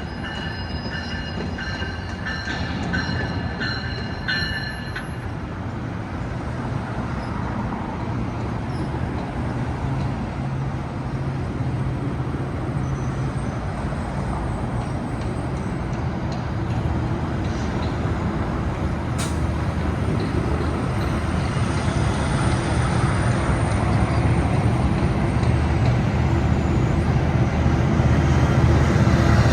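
GO Transit diesel passenger train rumbling past on the rails, with a steady low engine drone, and a few high squealing tones in the first five seconds. The sound grows gradually louder toward the end.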